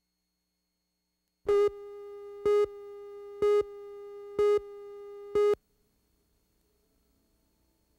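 Countdown beeps on a broadcast videotape slate: a steady low electronic tone with a louder beep once a second, five beeps in all. It cuts off about five and a half seconds in, leaving silence.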